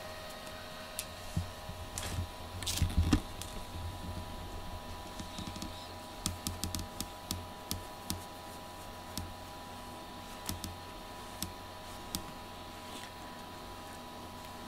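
Steady electrical hum with scattered light clicks and a few soft thumps, handling noise from a hand stroking a cat close to the camera.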